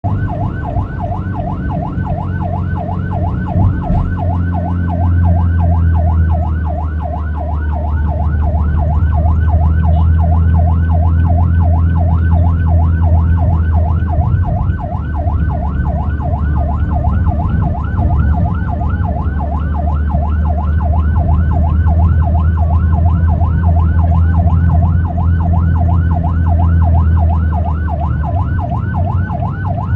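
Ambulance siren in a fast yelp, its pitch sweeping up and down about three times a second without a break, over a heavy, steady low rumble of the vehicle's engine and road noise.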